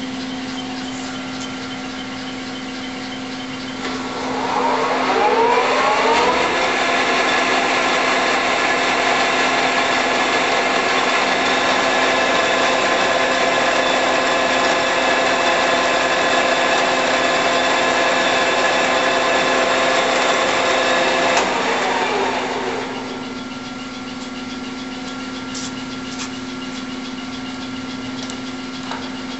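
Clausing Colchester 21-inch lathe running, its motor giving a steady hum. About four seconds in, the spindle and geared headstock spin up with a rising whine, run at a steady speed with a strong gear whine, then run down a little over two-thirds of the way through.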